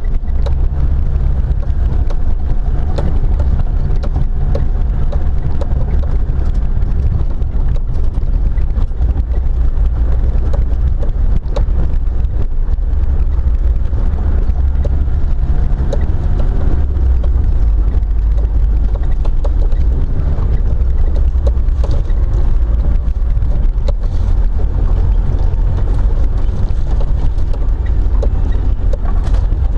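Car driving slowly along a rough dirt track: a steady low rumble of engine and tyres, with wind buffeting the microphone and scattered small knocks and clicks from the bumps.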